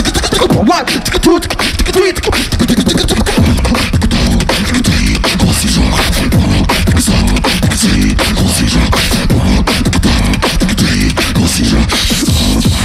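Live beatboxing into handheld microphones through a PA: mouth-made kick, snare and hi-hat sounds in a dense, driving rhythm over a continuous deep bass.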